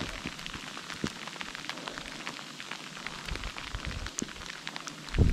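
Falling snow pattering on leaves and the ground: a dense scatter of light, irregular ticks over a soft hiss. A low rumble comes in right at the end.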